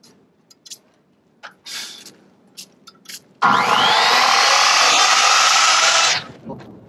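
A 10-inch circular saw starts with a rising whine and cuts steadily through a 4x wooden beam for nearly three seconds, then winds down, after a few light knocks.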